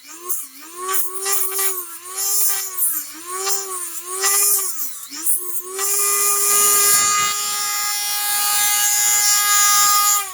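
A Dremel rotary tool grinding hard plastic body posts down flat. For about six seconds its whine dips and recovers in pitch roughly every 0.7 s as it bites into the plastic, then it runs free at a steady, higher pitch.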